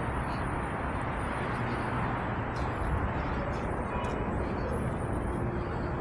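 Steady outdoor street noise: an even rush of passing traffic with a faint low hum.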